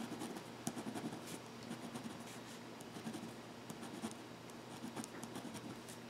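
Pen scratching faintly on paper as a row of short strokes is drawn, a quick run of small scratches.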